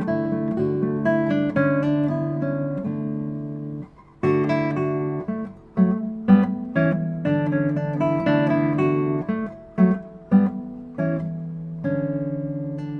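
Background music: solo acoustic guitar, picked notes and strummed chords, with a short break about four seconds in.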